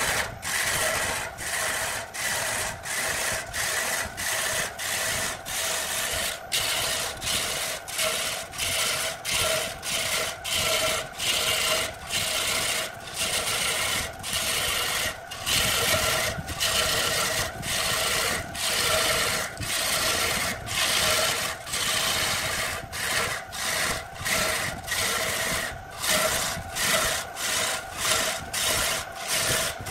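Lathe turning tool cutting into a large spinning wooden log, a dense scraping hiss of wood being peeled away into shavings. The cut comes in repeated strokes with short breaks, a little more than once a second, over a steady whine.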